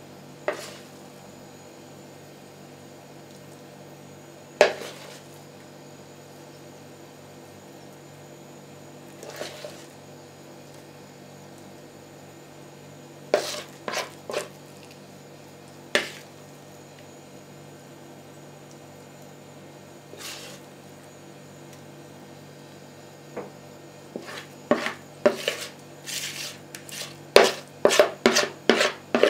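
Spoon knocking and scraping against a mixing bowl as thick curd-and-semolina batter is scooped into a multicooker's inner bowl: single knocks every few seconds, then a quick run of knocks near the end, over a steady low hum.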